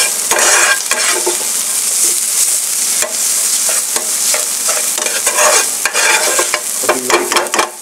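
Chopped onions, green chillies, garlic and ginger sizzling in hot oil in a non-stick pan while a metal spoon stirs and scrapes them round. There is a steady high sizzle with repeated scraping strokes from the spoon.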